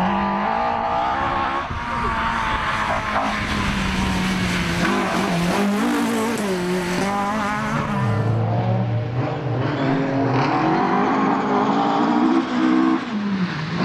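Ford Escort Mk2 rally cars at full throttle on gravel stages, engines revving hard through the gears, the note climbing and dropping at each shift and lift, in a few back-to-back passes.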